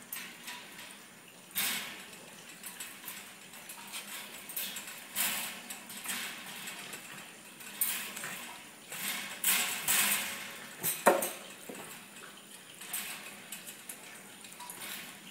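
A wire pet cage rattling and clattering in irregular bursts as a dog and a rabbit scuffle inside it, with one sharper knock about eleven seconds in.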